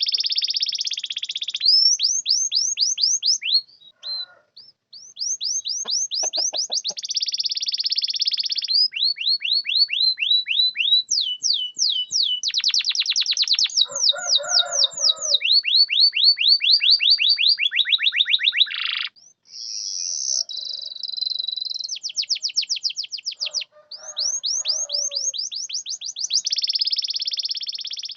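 Domestic canary singing a long song of fast trills. Runs of rapidly repeated high sweeping notes switch from one trill to the next every second or two, with a few short breaks.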